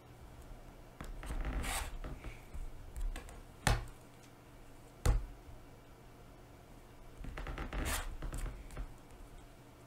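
A rotary cutter is run along a ruler through cotton fabric onto a cutting mat, trimming off the seam-allowance corners. Two short scraping zips, one about a second in and one near the end, with two sharp knocks in between.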